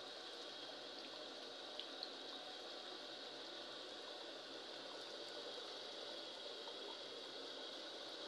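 Chicken karahi gravy boiling steadily in a metal pot, a faint, even bubbling. A couple of faint clicks come about two seconds in.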